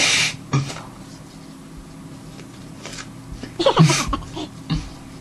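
Crunching bites and mouth sounds of someone eating a raw apple, sharpest at the very start. A short vocal noise comes from the full mouth about four seconds in.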